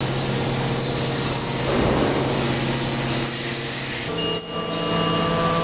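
CNC machining equipment running with a steady hum and a faint high whine. About four seconds in, the hum shifts to a higher pitch.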